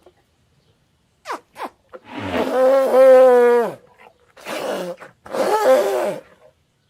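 Made-up Deinotherium calls: two very short sounds, then three pitched, roar-like calls. The first and loudest call lasts almost two seconds and drops in pitch as it ends.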